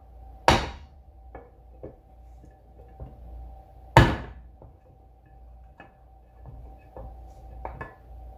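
Hammer blows on a 2x4 wood block driving a stuck rear main seal out of an LS engine's rear cover plate: two hard strikes, about half a second in and at four seconds, with lighter knocks between and near the end.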